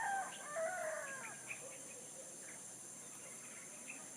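A rooster crowing: the end of the crow, a drawn-out note that falls in pitch and stops about a second in. Small birds chirp faintly afterwards over a steady high-pitched drone.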